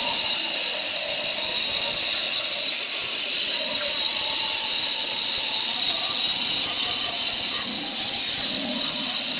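Handheld electric stone cutter sawing through a granite slab: a steady, high-pitched whine with the hiss of the blade grinding in the stone.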